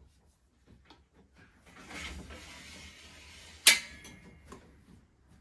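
Metal arm of a plasterboard panel lifter sliding along its frame with a scraping sound for about two seconds, then a single sharp clunk as it seats, followed by a lighter click.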